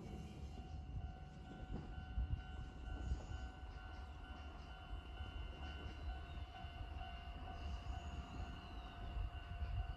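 Kōnan Railway 7000-series stainless electric railcar standing at the platform, its onboard equipment giving a steady hum of a few even tones over a low rumble. The tones stop just before the end.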